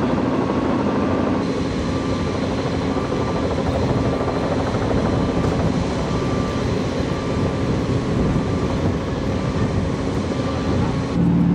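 Steady, loud drone of engines running, with a faint high beep repeating at an even pace.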